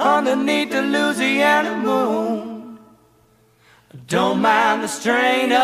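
Music: several voices singing a cappella in harmony, pausing for about a second near the middle before coming back in.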